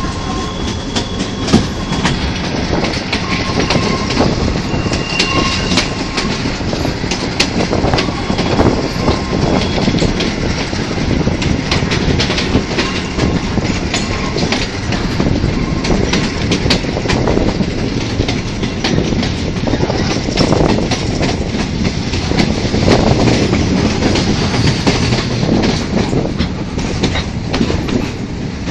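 Passenger train running on the rails, heard through an open carriage window: a steady rumble with the clatter of wheels over rail joints and one sharp knock about a second and a half in. A faint wheel squeal comes through in the first several seconds as the train rounds a curve.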